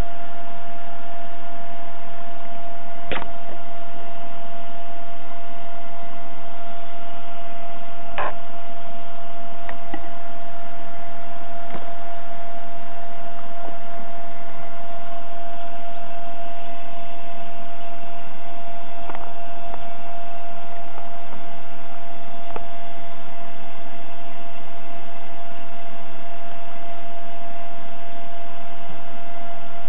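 Steady electrical hum: one constant high-pitched whine over a noise hiss, with a few faint clicks.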